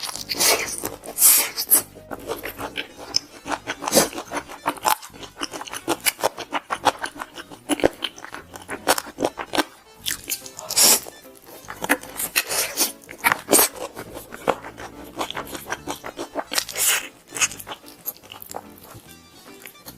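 Crispy fried chicken being bitten and chewed close to the microphone: a run of sharp, irregular crunches, with louder bites now and then.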